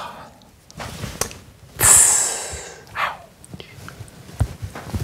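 A man's breath: a loud hiss of air about two seconds in, then a short sigh that falls in pitch, with a few light knocks of small things on a workbench.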